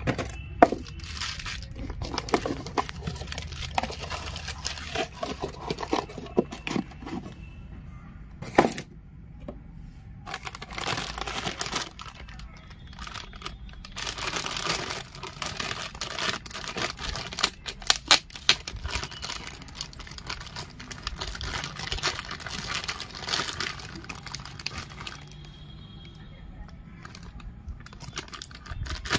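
Clear plastic packaging bag crinkling and being torn open as a toy tractor is unwrapped, the crackle coming and going in irregular spells, with a few sharp clicks.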